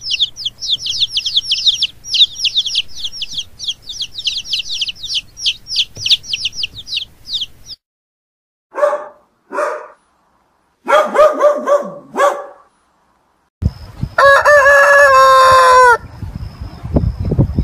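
Baby chicks peeping rapidly and continuously for about eight seconds, then a Samoyed dog giving a few short barks and yips. Then a rooster crows one long call that drops in pitch at the end, and a low rough grunting noise comes in near the end.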